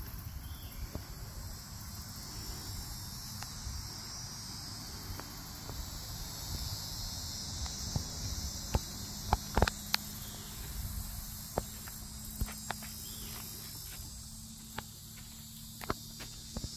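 A chorus of insects chirring steadily and high-pitched, over a low rumble. Scattered sharp clicks come through, a quick cluster of them about halfway through.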